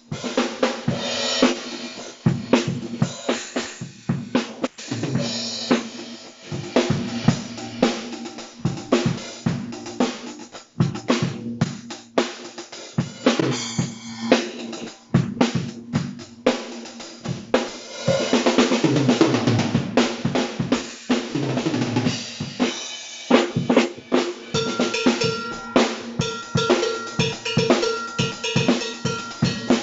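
Tama Imperialstar acoustic drum kit being played: snare, bass drum and cymbals in a busy pattern with fills, with a longer stretch of cymbal wash about two-thirds of the way through.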